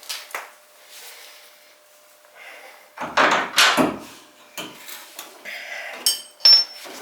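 Metal clunks and scraping as a bolt is worked out of a truck's rear shock absorber mount to free the old shock, loudest about three to four seconds in, followed by a couple of sharp metallic clinks near the end.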